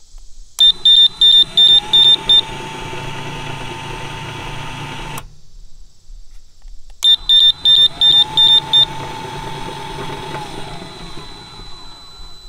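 Ghost Controls solar gate opener cycling on the remote, twice: a rapid run of about seven high beeps from the unit as its linear actuator motor starts with a rising whine, then the motor runs steadily for about four seconds and stops. The second cycle begins about seven seconds in.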